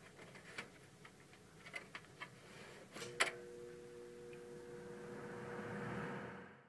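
Light clicks and taps against a wire-mesh cage and its lever, then one sharp click about three seconds in. It is followed by a steady electric hum and a rush of air that grows louder, as a box fan runs to cool the cage.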